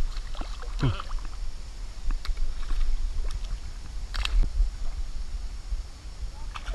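A small smallmouth bass splashing into the river as it is tossed back, over a steady low rumble, with a sharp click about four seconds in.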